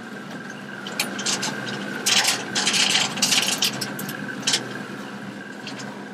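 A boat engine runs steadily underneath. About two seconds in, close scraping and rubbing noises come loudly for a couple of seconds, with a few sharper scrapes before and after.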